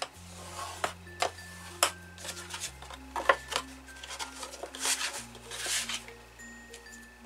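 Thick cardstock being folded along scored lines by hand: a series of sharp creasing clicks and taps, loudest about three seconds in, then a longer papery rustle about five seconds in as the folds are pressed flat. Soft background music plays under it.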